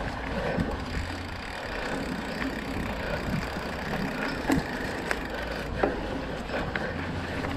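2020 Trek Procaliber 9.6 mountain bike riding over a dirt woodland trail: steady rumble of knobby tyres rolling on packed earth and the bike rattling, with sharp knocks from bumps, the loudest about four and a half and six seconds in.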